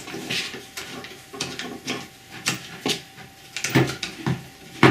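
Irregular clicks and light metallic clinks of an Einhell biscuit joiner's metal and plastic parts being handled and taken apart by hand, with a sharper knock near the end.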